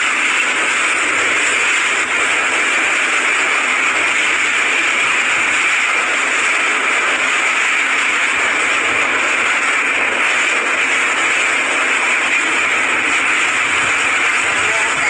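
Cyclone-force wind and heavy rain making a loud, steady rushing noise that does not let up.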